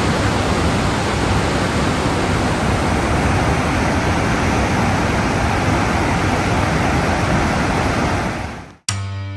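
Steady, loud rush of a large waterfall's falling water. It fades and cuts off just before the end, when music with plucked guitar notes begins.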